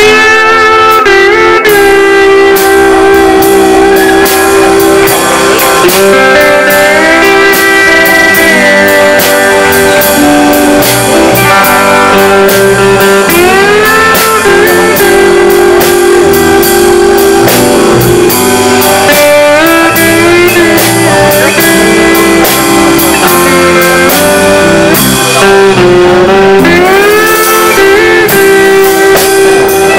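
Live amplified country band playing a slow number, with a steel guitar carrying the melody in long held notes and sliding bends, over electric guitar and electric bass.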